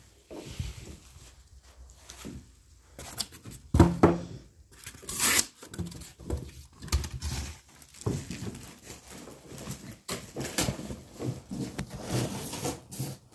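Rowing-machine packaging being handled: irregular rustling and scraping of cardboard and plastic wrap, with several sharp knocks, the loudest about four seconds in.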